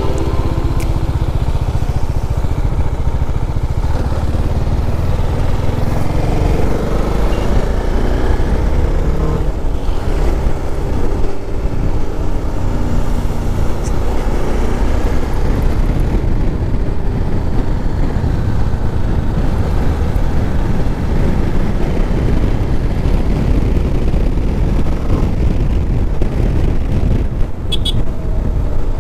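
TVS Apache RR310's single-cylinder engine running at road speed under a heavy wind rumble on the bike-mounted camera's microphone. The engine note rises and falls between about six and ten seconds in as the throttle changes through the bends.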